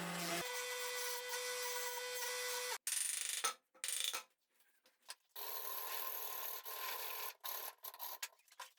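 Abrasive rubbing on wood, like sanding or rasping, heard as a steady stretch that cuts off abruptly. Short choppy passages and brief silent gaps follow, then another steady stretch of rubbing.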